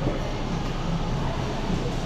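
Car driving, with steady road and engine noise heard from inside the cabin.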